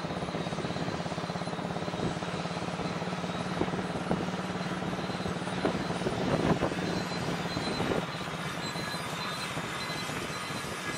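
A vehicle engine running with a fast, even pulse, with road noise heard from on board as it drives along. A few knocks come over it about four to seven seconds in, and the engine note eases a little near eight seconds.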